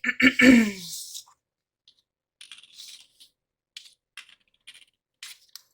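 Pen or marker writing on planner paper: a run of faint, short scratchy strokes and light ticks in irregular bursts.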